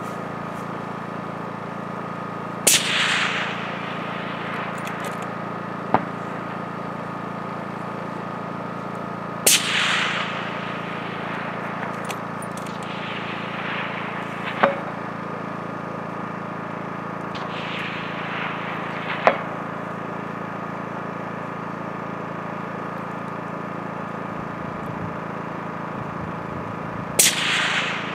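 Rifle shots fired at long-range targets, a few seconds apart or more. Three loud reports each trail a long rolling echo, with shorter, sharper cracks and fainter echoing reports between them.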